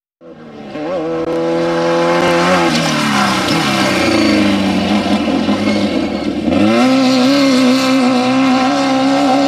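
Off-road race vehicle engine running loud, cutting in suddenly just after the start. Its pitch falls over a couple of seconds, then jumps up about two-thirds of the way through and holds steady.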